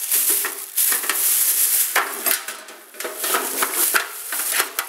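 Plastic shopping bag rustling and crinkling as a hand digs through it inside a metal ammo can, with small hard items clicking and clinking against each other.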